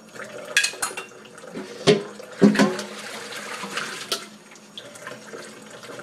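Kitchen tap running into the sink during hand dish-washing, with several sharp clinks and knocks of dishes against each other and the sink, the loudest about two and a half seconds in.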